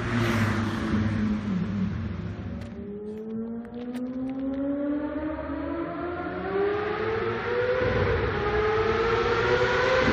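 GXR 1000 engine through its tunnel exhaust under a speed run: the pitch falls off at first, dips quieter with a few clicks around three to four seconds in, then climbs steadily as it accelerates, drops briefly near eight seconds as it shifts up, and climbs again.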